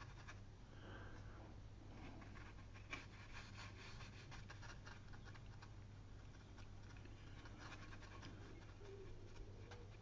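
Faint scratching and dabbing of a watercolour brush on textured paper as paint is laid on, over a low steady hum.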